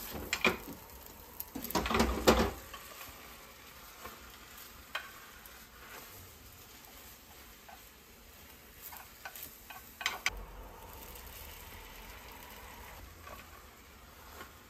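Beaten egg sizzling in an oiled rectangular tamagoyaki pan, with chopsticks scraping and tapping against the pan as the omelette is rolled. A cluster of loud scrapes and knocks comes in the first couple of seconds, then a steady faint sizzle with a few taps, a louder pair about ten seconds in.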